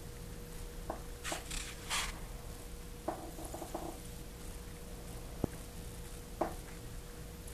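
Scattered short rustles and light knocks of handling, including a quick run of soft rustles about three seconds in and a single sharp click past halfway, over a faint steady hum.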